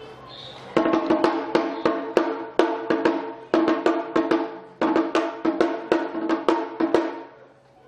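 Awa odori festival band playing a brisk, driving rhythm: rapid regular drum and percussion strikes over ringing pitched notes, with a brief break just after the start and the music dying away near the end.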